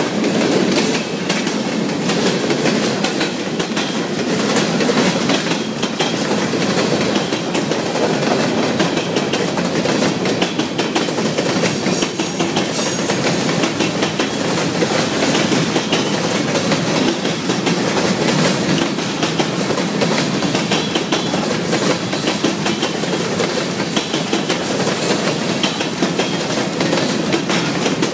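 Freight cars of a long mixed freight train (centerbeam flatcars, covered hoppers, boxcars) rolling steadily past: a continuous rumble and rattle of steel wheels on the rails, with the clickety-clack of the wheels going over the track.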